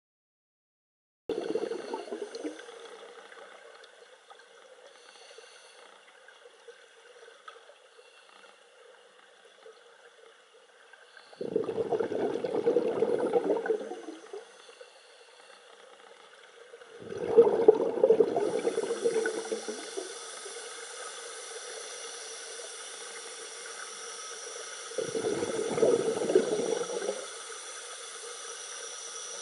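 Scuba divers' breathing heard underwater: bursts of bubbling from exhaled air, four in all, each two to three seconds long. From about two-thirds in, a steady hiss of air joins them, the sound of a regulator second stage free-flowing.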